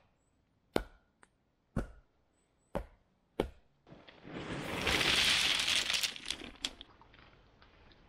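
Four sharp knocks about a second apart, then gravel poured out of a bag onto a pile of stones: a long rattling rush that builds, peaks and tails off into a few scattered clicks of settling stones.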